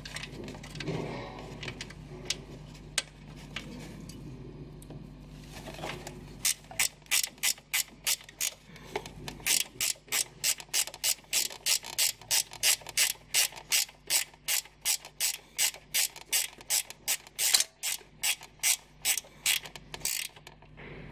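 Hand ratchet clicking as a nut is run down onto a chassis stud to fasten a ground cable, about three even clicks a second. The clicking starts about six seconds in, after quieter handling of the tool and wire, and stops just before the end.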